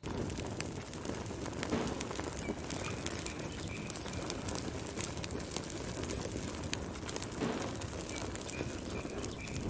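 Wood fire burning, with frequent sharp crackles and pops over a steady low rush of flame.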